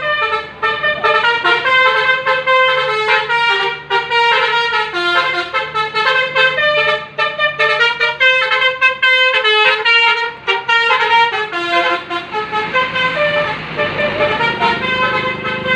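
Bus's Basuri telolet horn, a multi-tone musical horn, playing a quick tune of short stepped notes, several a second, over a low steady hum.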